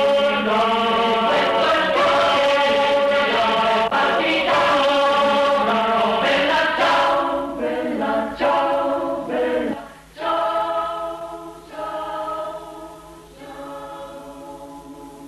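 Choir singing an Italian mountain song a cappella in sustained chords. About ten seconds in, the singing falls to a softer, quieter phrase.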